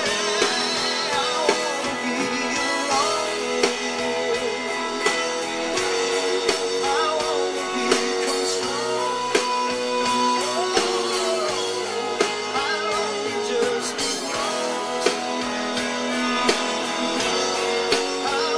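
Band music led by guitar, with drums keeping a steady beat and a voice singing over it.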